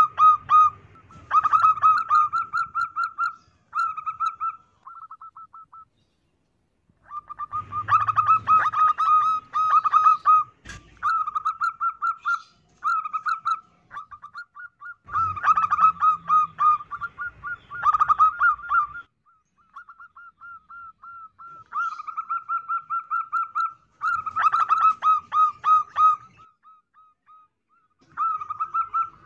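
Female zebra dove (perkutut) calling: phrases of fast, staccato trilled cooing, each one to three seconds long, repeated after short pauses, with some phrases much louder than others.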